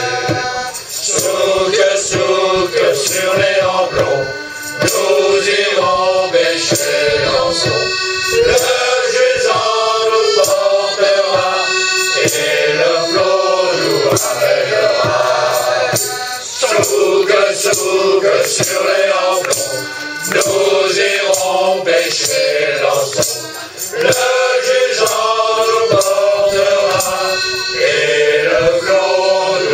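Men's choir singing a song, phrase after phrase with short breaths between.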